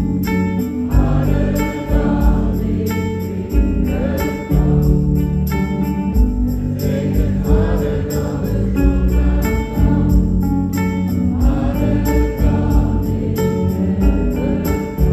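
Live band music with banjo, electric guitars, keyboard and drums playing over a steady beat, recorded from the audience.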